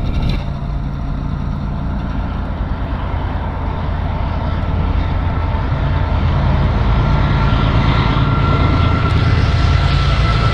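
Wind buffeting the microphone in a heavy low rumble, with a steady high tone that grows louder through the second half.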